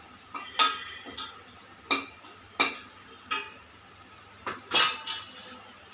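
Metal ladle stirring and scraping an onion and spice-powder masala in a stainless steel pot, clinking sharply against the pot about seven times at irregular intervals.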